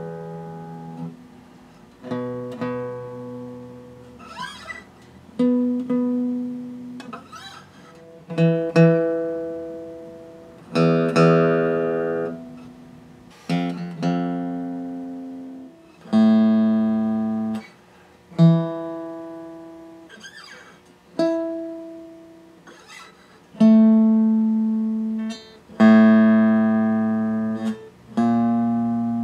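Martin D-41 dreadnought acoustic guitar with its strings plucked one at a time about every two seconds, each single note ringing out and fading, checked against a tuner.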